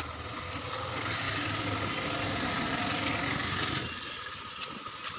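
A motor vehicle passing by: its engine and road noise build up, hold for a few seconds and fade away about four seconds in.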